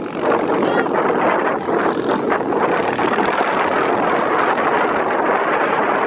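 Steady, loud rushing noise of wind blowing across the phone's microphone.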